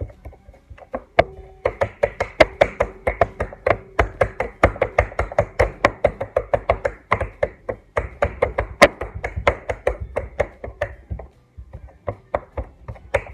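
Slime being poked and squeezed by hand: a rapid run of sharp, wet pops and clicks, about four or five a second, that dies down about eleven seconds in.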